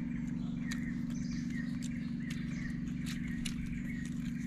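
A bird giving short chirps over and over, under which runs a steady low hum, with a few scattered light clicks.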